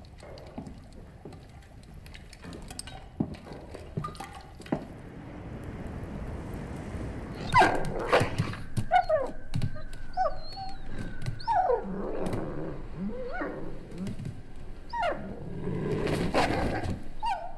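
A large white wolf whines and whimpers over and over in high, sliding cries, starting about halfway through, with a few soft knocks before it.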